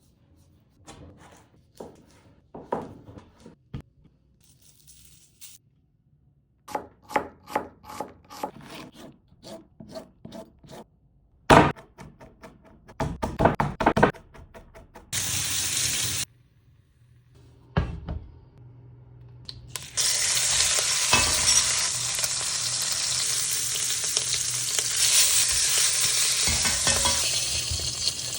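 Kitchen work: scattered knocks and clicks, a quick run of knocks, and one loud knock. From about two-thirds in comes a steady sizzle of food frying in a hot pan.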